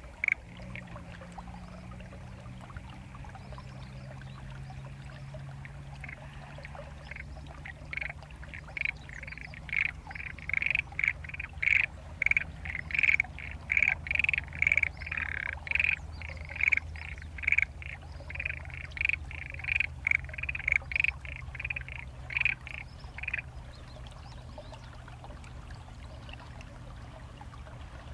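A chorus of frogs croaking in short, evenly repeated calls, about two a second. It starts faintly, grows loud, then stops abruptly near the end. The recordist takes them for black-spotted pond frogs, perhaps with other species among them.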